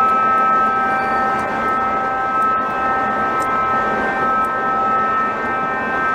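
Jet engine running steadily: a constant high whine of several pitches over a rushing roar.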